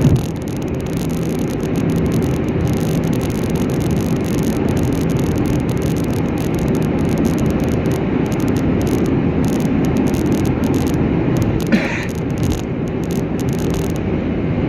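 Car driving at a steady speed: continuous engine and tyre road noise, with a brief high chirp about twelve seconds in.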